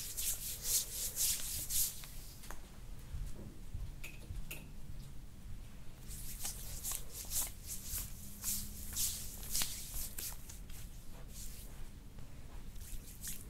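Oiled hands rubbing in quick strokes over the bare skin of a person's back during soft-tissue massage. The strokes come in spells, a run near the start and a longer run a few seconds later.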